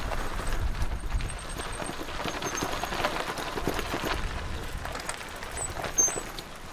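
Footsteps of people walking, uneven steps over a low rumble, with a few faint high chirps.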